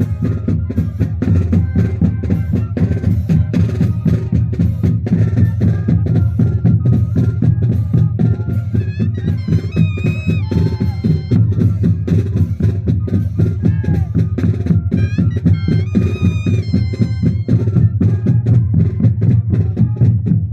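Moseñada band music: a steady beat of drums under sustained wind playing, with a melody line over the top.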